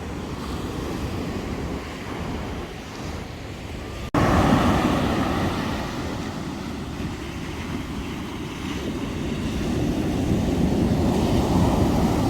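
Ocean surf breaking and washing on the shore, with wind buffeting the phone's microphone. The sound jumps louder at a cut about four seconds in and swells up again near the end.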